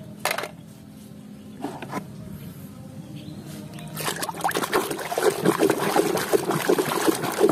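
A hand sloshing and splashing through a basin of muddy water, starting about four seconds in and continuing busily. Before that, a couple of light knocks as a plastic toy is picked out of a pile of toys.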